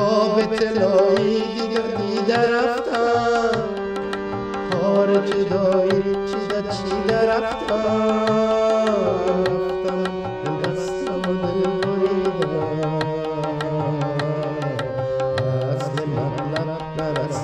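A song with tabla drumming keeping a steady rhythm under held melody notes, and a man singing a wavering melodic line.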